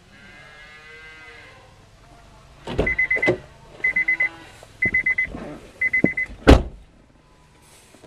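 A cow moos briefly at the start. Then an electronic beeper gives four bursts of fast high-pitched beeps, about one a second, with several sharp knocks among them, the loudest a little after the last burst.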